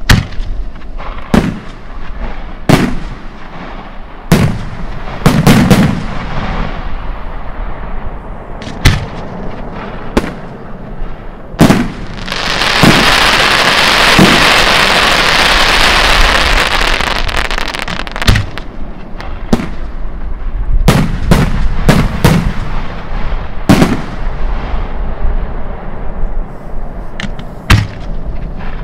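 Italian aerial firework shells bursting: a series of sharp booms at irregular intervals, some in quick clusters. About halfway through there is a dense, continuous crackling hiss lasting some five seconds.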